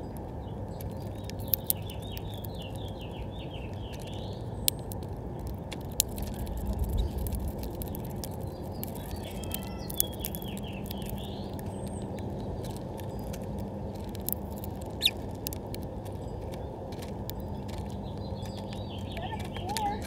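House finches feeding at a clear plastic tray feeder: sharp single clicks now and then as beaks crack sunflower seeds and knock the tray, and short bursts of high chirping twitter three times. A soft low thump about six seconds in, over a steady low hiss.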